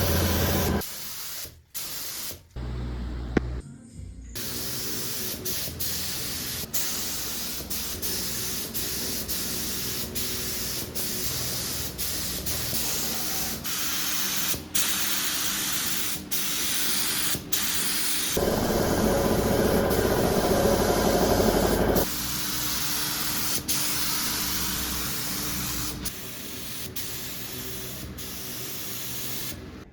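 Spray painting motorcycle body parts: repeated hissing of paint spray, heard in a string of short clips with abrupt breaks between them, and a louder, fuller stretch about two-thirds of the way through.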